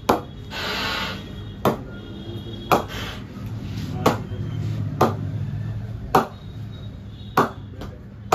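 A leather cricket ball being bounced off the face of a new BAS King Hitter cricket bat to 'ping' it, testing how the blade rings. The result is a series of sharp wooden knocks, each with a short ring, about one a second. A short rustle comes about a second in.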